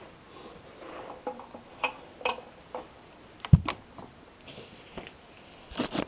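Scattered short knocks and clicks with some rustling, and one sharp thump about three and a half seconds in.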